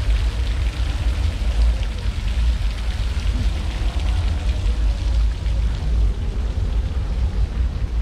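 Wind buffeting a GoPro's microphone in uneven low gusts, over a steady hiss of city street noise.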